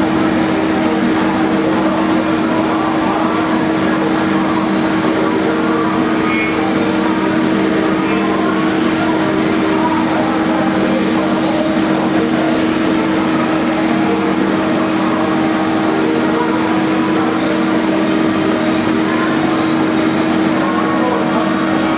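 CNC lathe running with a steady hum holding two low tones over a constant hiss, while hard-turning forged steel with a CBN insert.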